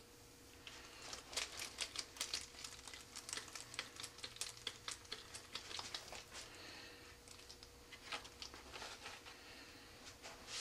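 Faint, irregular soft clicks and rustling from nitrile-gloved fingers working grease onto small rubber O-rings, busiest in the first half and thinning out later.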